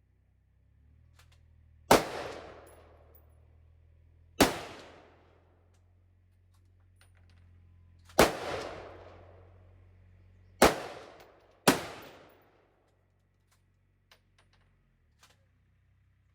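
Five single gunshots at a shooting range, unevenly spaced with the last two close together, each followed by a ringing echo that dies away over about a second.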